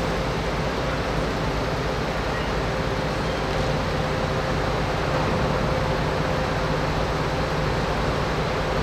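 A heavy vehicle's engine running steadily, with a constant low hum and no change in speed.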